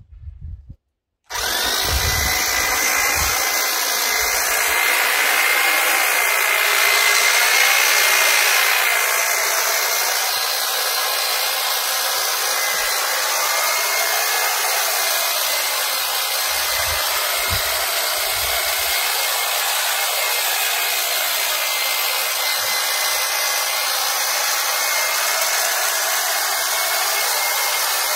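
Titan electric long-reach hedge trimmer starting about a second in, then running steadily with a high-pitched whine as its blades cut into the side of a thick, dense hedge.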